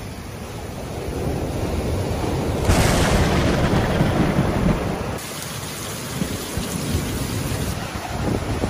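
Rough, stormy sea: waves breaking and washing up the beach, with heavy wind rumbling on the microphone. The noise changes abruptly about three and five seconds in.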